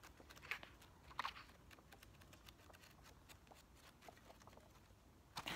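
Faint rustling and soft flutter of paper pages as a paperback book is flipped through, with a couple of brief clicks about half a second and a second in.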